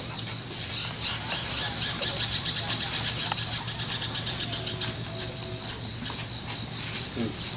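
Insects chirping in a steady, high-pitched, rapidly pulsing chorus, with a faint low hum underneath.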